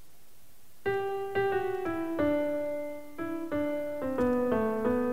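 Keyboard playing a simple melody one note at a time, starting about a second in: the instrumental introduction of a French children's song.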